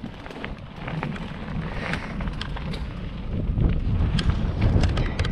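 Wind buffeting the camera microphone over the rumble of Titus mountain bike tyres on a dirt singletrack descent, with scattered sharp clicks and rattles as the bike runs over the rough trail. The rush grows louder about three seconds in as speed builds.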